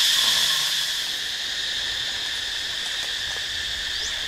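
Steady, high-pitched chorus of insects droning in dry forest.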